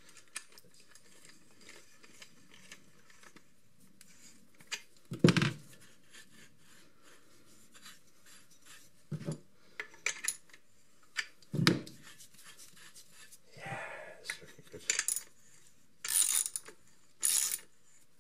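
Small metal tools and parts being picked up and set down on a wooden workbench: scattered clinks and knocks, the loudest about five seconds in, with rubbing and rustling between them and two short hissy rustles near the end.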